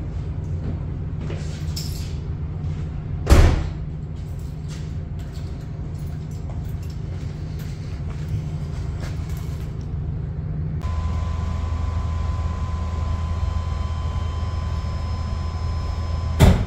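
Lamborghini Countach V12 idling with a steady low rumble, broken by a short loud burst about three seconds in and another just before the end.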